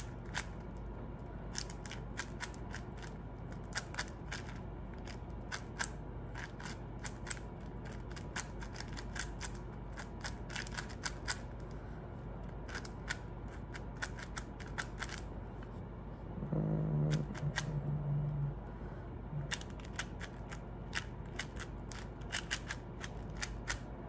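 Plastic 4x4 speed cube being turned fast by hand: rapid, irregular clicking and clacking of its layers, in quick flurries with short pauses.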